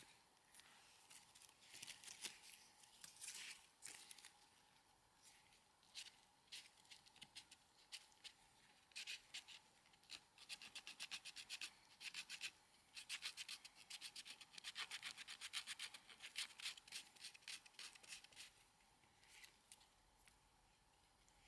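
Knife blade shaving and scraping a stick of wood in runs of quick, short strokes with pauses between them, cutting kindling for a small wood stove fire. The sound is faint.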